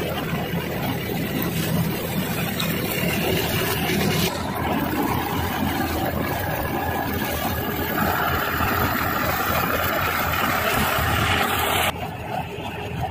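Paddy combine harvester running: a steady, loud drone of its engine and threshing machinery. A higher whine joins about eight seconds in, and the sound shifts abruptly about four and twelve seconds in.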